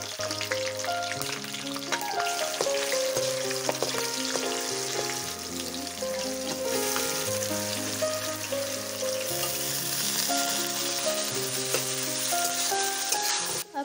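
Chopped onions and green chillies sizzling in hot oil in a large aluminium kadhai, with the scrape of a metal spatula stirring now and then, under background music with a stepping bass line.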